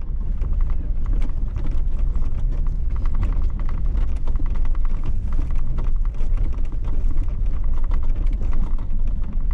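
A Jeep driving slowly over a rough dirt trail, heard from inside with the window down: a steady low rumble of engine and tyres with a rapid, continuous patter of clicks and rattles as it bounces over the stony ground.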